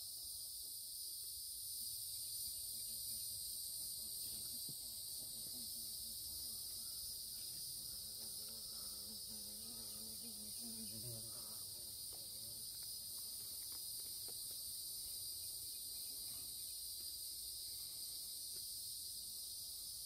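Chorus of insects singing steadily, a continuous high-pitched drone made of several pitches held together.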